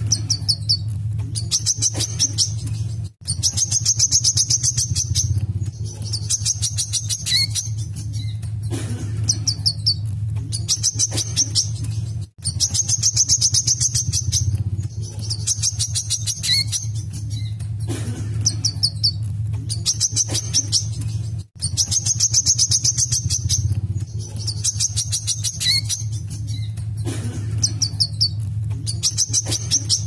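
Male sunbird (wiceh) singing in the fast, run-on 'mbeset' style: very rapid high-pitched trills mixed with sharp single notes, the same sequence coming round about every nine seconds. A steady low hum runs underneath.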